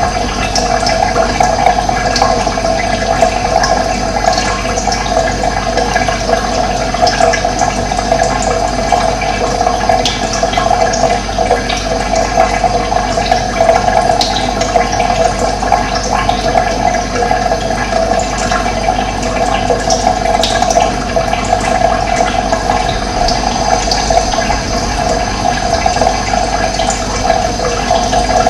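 Steady, continuous running water, a full gurgling flow that does not let up, with a few faint high bird chirps over it.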